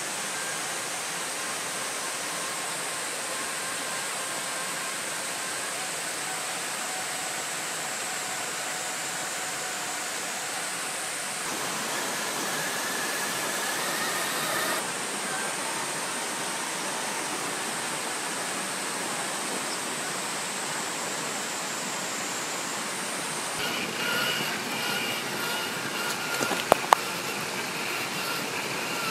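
Axial SCX6 1/6-scale RC rock crawler running along a dirt trail: a steady electric motor and gear whine over a hiss, with two sharp clicks near the end.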